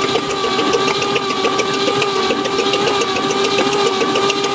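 Starter cranking a 1961 Chevy Apache's 235 stovebolt inline-six with the valve cover off. It is a steady whine over rapid, even ticking from the rocker arms. The engine turns over without firing while the valves are checked, and all of them are now opening and closing after one had been sticking.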